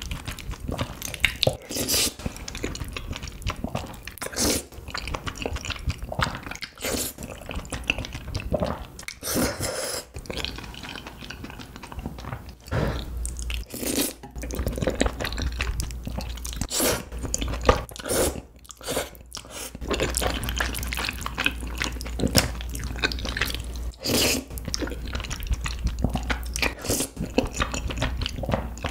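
Close-miked slurping and chewing of a mouthful of creamy spicy noodles: quick wet smacks and clicks of lips and mouth, one after another. A steady low hum sits underneath from about halfway.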